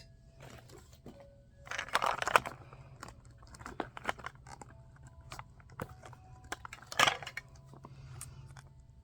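Plastic packaging crinkling and small plastic pieces clicking as a Mini Brands toy capsule is handled, with two louder bursts of crinkling, about two seconds in and about seven seconds in.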